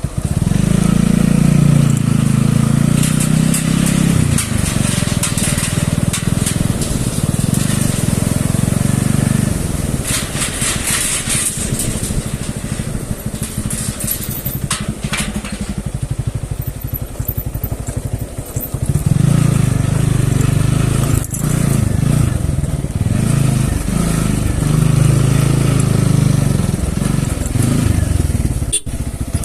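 Motorcycle engine running while being ridden, loud at first, easing off through the middle with some clicks and rattles, then pulling harder again about two-thirds of the way through.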